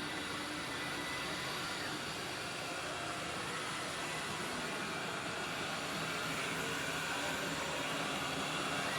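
Roborock S8 robot vacuum running, its suction motor giving a steady, even whir.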